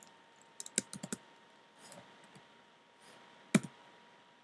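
Keystrokes on a MacBook keyboard: a quick run of about five key clicks about a second in, then a single louder key click near the end.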